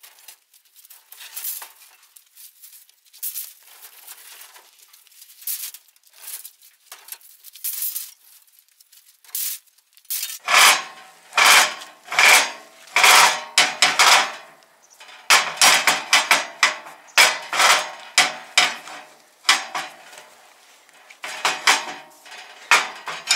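Rusty scrap iron pieces being handled and dropped onto a scrap pile: repeated metal clanks and scrapes, light and sparse at first, then loud, frequent clanking from about ten seconds in.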